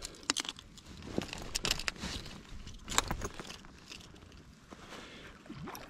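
Scattered light clicks and rattles of fishing gear, a spinning rod and reel and a landing net, being handled while a hooked fish is brought in; the clicks are denser in the first half and thin out near the end.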